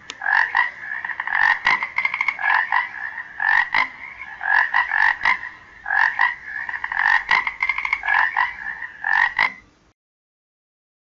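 A frog croaking in quick rattling calls, repeated in bouts with short gaps, cutting off about a second before the end.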